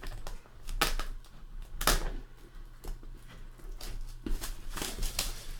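A sealed trading-card box being opened and handled, making a series of sharp clicks and snaps of packaging, the loudest about one and two seconds in.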